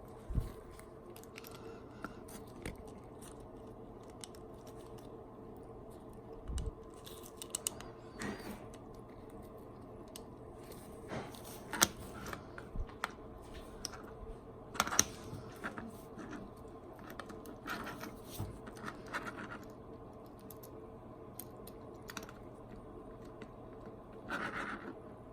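Small 3D-printed PLA parts of a micro RC crawler being handled and taken apart by hand: irregular light clicks, taps and scrapes, a few sharper snaps, over a steady low hum.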